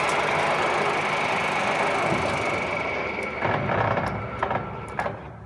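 Gear-head engine lathe's headstock gearing and 10-HP motor drive running with a steady whine, then dying away over the last couple of seconds as the spindle stops. A few sharp clicks sound as it winds down.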